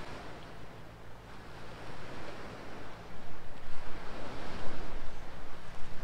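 Small sea waves washing against a rocky shore, a surging noise that swells and eases and grows louder in the second half, with wind rumbling on the microphone.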